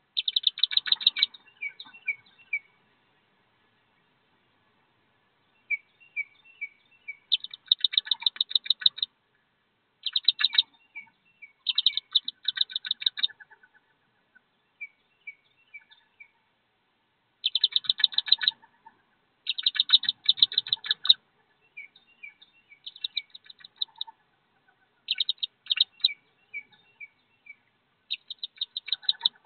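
Wood duck ducklings peeping in bursts of rapid, high, repeated peeps, with softer, lower notes in between and a few short lulls.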